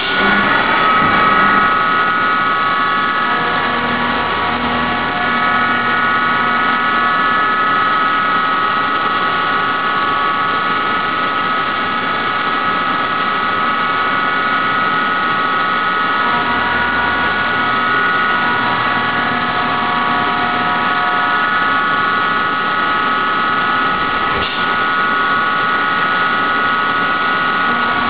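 CNC vertical mill with a carbide endmill cutting 4140 steel bar under flood coolant: a steady whine of several high tones over the hiss of coolant spray.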